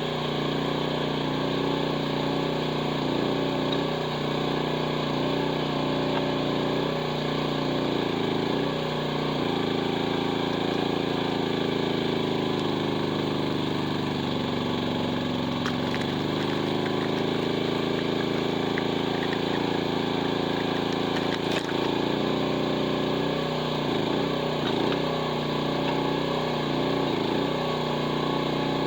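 Mini excavator engine running hard at high throttle while its hydraulic wood splitter works. About ten seconds in the engine's pitch sags for several seconds and then climbs back: the engine bogging down under load as the splitter forces through a big oak block. There are a couple of sharp cracks later on.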